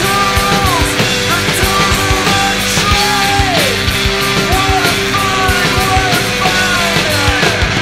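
Rock band music with steady, busy drums and a lead line that keeps sliding down in pitch over held low notes.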